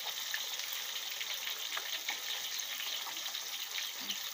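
Asian sea bass (barramundi) deep-frying in hot oil in a large wok: a steady sizzle with many small scattered pops.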